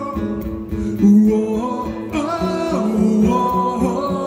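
Live rock band playing with guitars and a steady beat while the lead singer sings drawn-out "whoa" calls.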